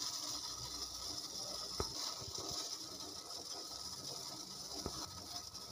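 Water with whole spices at a rolling boil in a steel pot on a gas stove: a steady bubbling hiss, with a couple of faint ticks.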